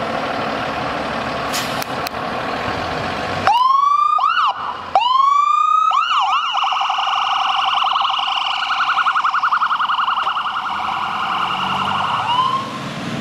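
Ambulance's electronic siren starting up: two rising whoops with quick chirps, then a held high wail with a rapid warble, ending in a short upward chirp near the end. Before it starts there is a steady rumble of engine and traffic noise.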